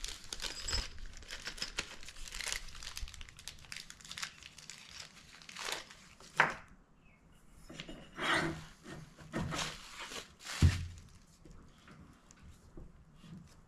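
A small plastic parts bag crinkling and tearing as it is handled, with light clicks of small metal parts. There is a sharp click about six and a half seconds in and a louder thunk at about eleven seconds, then only faint handling.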